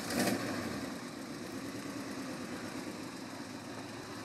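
Jeep CJ5 engine running steadily at low revs while the Jeep creeps slowly forward, heard from a distance. A short louder burst of noise comes right at the start.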